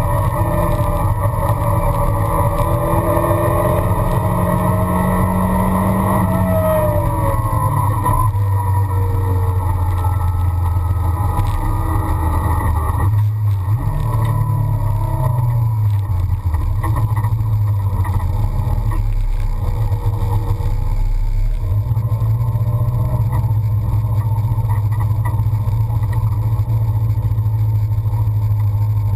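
1973 Toyota Celica race car's engine heard from inside the cabin: it runs at high revs at first, and its pitch drops away about a quarter of the way in as the throttle is lifted. A brief rise and fall in revs comes around the middle, then it settles into steady lower revs for the rest.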